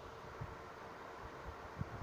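Faint steady hiss with a few soft low knocks, from a pot of chicken biryani gravy left to boil on the stove.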